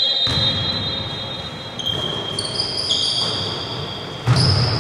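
Sounds of an indoor basketball game in a large gym: a ball bouncing and players moving on the court, with hall reverberation. Over it runs a high, steady whine that shifts pitch several times, and the noise gets louder about four seconds in.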